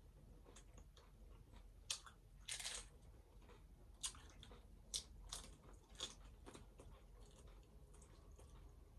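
Faint crunching of hard taco shells being bitten and chewed: a few sharp crunches between about two and six seconds in, one a longer crackle, with quieter chewing clicks between.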